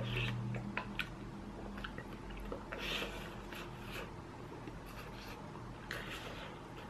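A person chewing a mouthful of budae jjigae (Korean army base stew) close to the microphone: soft wet mouth clicks and smacks, with a few brief breathy sounds spaced a few seconds apart.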